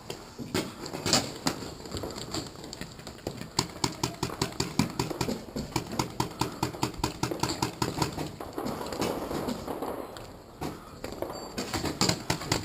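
Quick, even footsteps, about four a second, as someone moves at a run across the field; they ease off for a couple of seconds past the middle and pick up again near the end.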